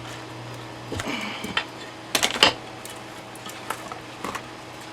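Clicks and knocks of a vintage radio chassis being handled and turned over on a workbench: a few sharp knocks about one and two seconds in, then lighter ticks.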